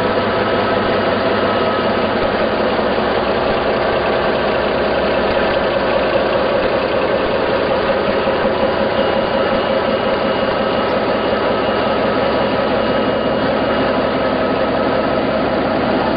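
FIAT 7131 diesel railcar's engine running steadily at idle, heard close alongside the car.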